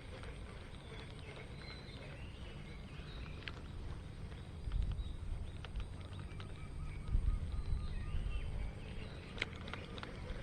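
Birds calling: a few rising and falling chirps, then a run of evenly repeated short notes about two-thirds of the way in, over a low wind rumble on the microphone. There are a few sharp clicks near the end.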